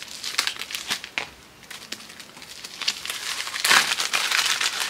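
Packaging crinkling and rustling as a small item is handled and unwrapped, with scattered sharp crackles. It grows louder and denser about three-quarters of the way through.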